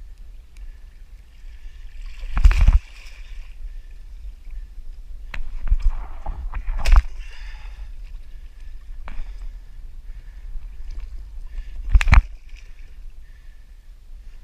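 Water sloshing and splashing against a kayak, with four sudden hard knocks or splashes spread through it and a steady low rumble beneath.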